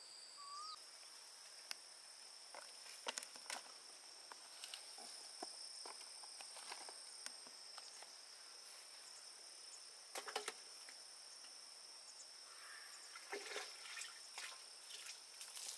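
Faint, steady high-pitched chorus of insects such as crickets, with a short rising bird call about half a second in and scattered sharp clicks and knocks, clustering near the end.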